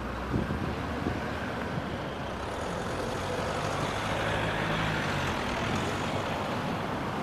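Street traffic: a passing car's engine and tyre noise swells and fades in the middle, over a steady hiss of road noise.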